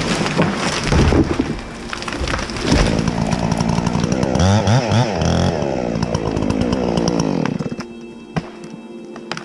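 A chainsaw cutting wood, its engine revving up and down under load, then cutting out about three-quarters of the way through. Scattered sharp cracks and ticks follow.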